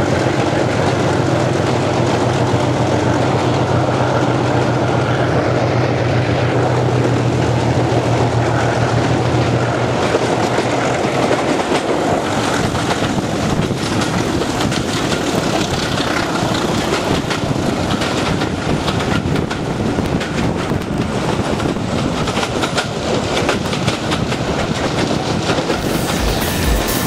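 Class 37/9 diesel locomotive 37906 with its Ruston engine running at the head of a train, heard from an open carriage window. A loud, steady engine drone echoes inside a tunnel for the first ten seconds or so. Then, out in the open, the engine note fades under the rattle and clickety-clack of the carriage wheels on the rails.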